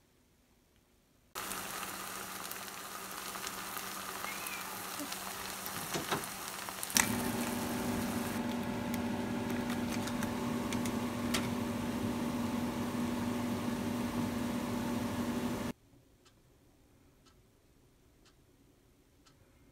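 Fried rice sizzling in a frying pan while it is stirred with a spatula, with a few scraping clicks and a steady hum under it. The sizzle starts abruptly about a second in and cuts off suddenly near the end.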